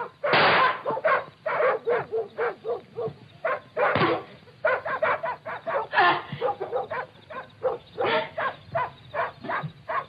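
A person sobbing and crying out in short wordless bursts, anguished and gasping, with a couple of louder outbursts near the start and about four seconds in. The sound comes from an old television soundtrack with a thin, muffled top end.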